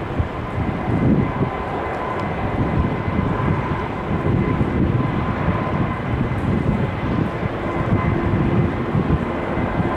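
Jet airliner engines running steadily, with a faint steady whine, over uneven rumbling of strong wind on the microphone.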